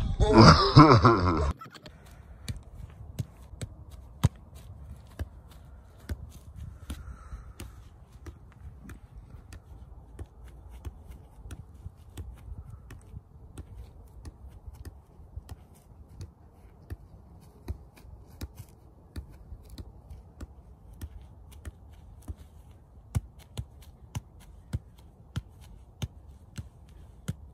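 A football being juggled: a string of short, light thumps as the ball is kept up off feet, thighs and head, irregular, about one or two a second. It opens with a loud burst of sound that cuts off suddenly after about a second and a half.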